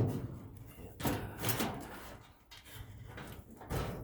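Metal clanks and knocks from the sheet-metal housing of a small furnace being dismantled: a loud knock right at the start, two more about a second in, and another near the end, with lighter rattling between.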